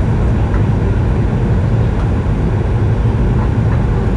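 Steady cabin noise inside a Boeing 737-900ER over the wing during descent: its CFM56-7B engines and the airflow make a constant low rumble.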